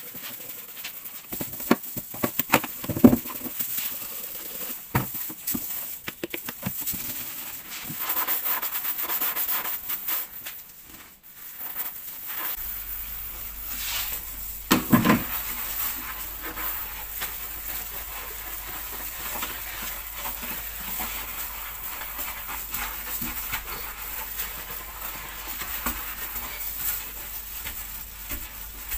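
Household chore sounds: rubbing and scraping with scattered clicks and knocks, and a louder knock about halfway through. A low steady hum comes in partway through and continues.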